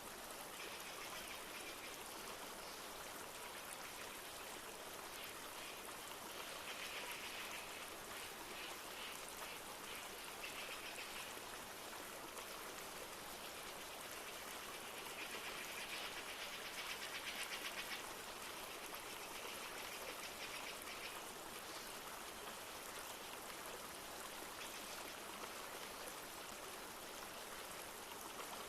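A flowing rain forest river running steadily, with light rain falling. A rapid, high trill rises over it a few times, most strongly about a quarter of the way in and again past the middle.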